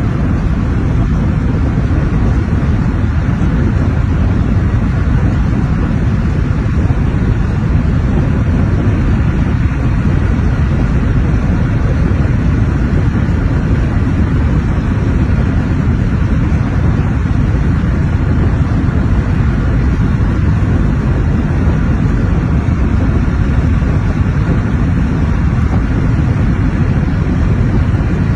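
Vehicle travelling at highway speed: a steady, loud low rumble of tyre and wind noise.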